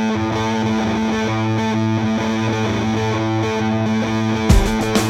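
Background rock music with distorted electric guitar playing sustained chords; drums come in with a kick about four and a half seconds in.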